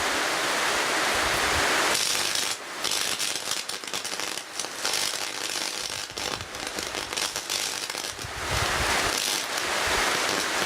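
Mains-voltage electrical arc crackling and hissing at a screwdriver: a dense hiss that breaks into irregular crackles for several seconds in the middle.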